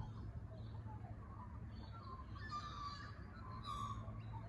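Birds chirping and calling, with a cluster of calls about halfway through, over a steady low hum.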